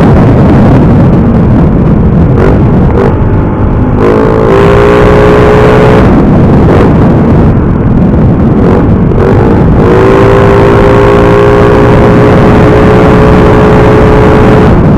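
Motorcycle fitted with a loud aftermarket chicken-pipe exhaust, running under way. Its engine note climbs about four seconds in and then holds steady, over heavy wind rush on the microphone.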